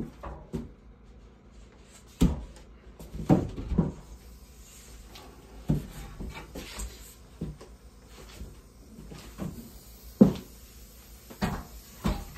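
Wooden boards being handled and knocked about while one is carried and lifted into place against the ceiling: a scatter of irregular knocks and bumps of wood on wood, the sharpest about ten seconds in.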